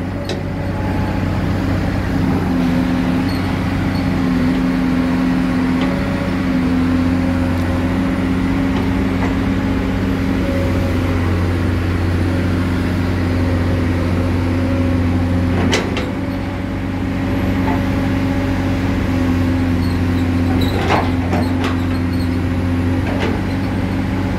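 Komatsu PC200-8 excavator's six-cylinder diesel engine running steadily under load while the boom and arm are worked, with a few sharp knocks about two-thirds of the way through and near the end.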